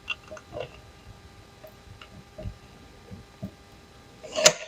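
Faint scattered clicks and light taps of hands working on window parts, with one sharper click near the end.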